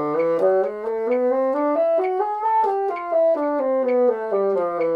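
Bassoon playing a two-octave scale in even steps, climbing to the top note about two and a half seconds in, then coming back down.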